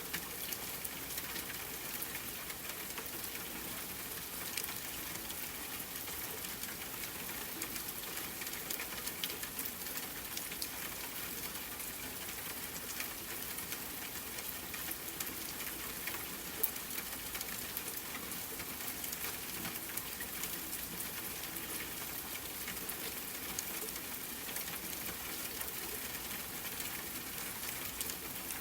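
Steady rain pattering, an even hiss dotted with many small drop ticks and the odd louder drip.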